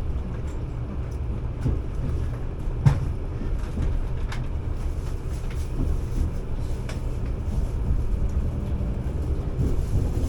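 Running noise inside a 383 series electric train car: a steady low rumble with scattered sharp clicks, the loudest about three seconds in.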